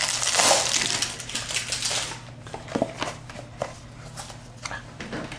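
Cardboard Funko Mystery Minis blind boxes being handled: a scraping cardboard rustle for about two seconds, then a scatter of light taps and clicks.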